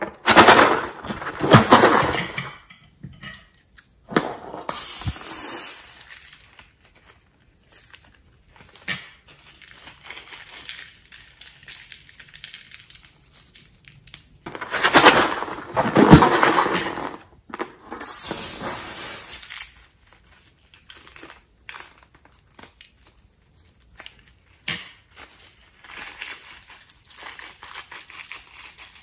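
Sequins being squeezed out of rubber balloons onto slime: crinkling, rattling rustle with small crackles. It comes in two loud spells, one at the start and one about halfway through, with lighter scattered crackling between and after.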